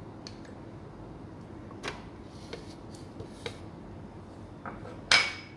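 Soft taps and knocks of kitchenware, then one sharp clink with a short ring near the end, the loudest sound.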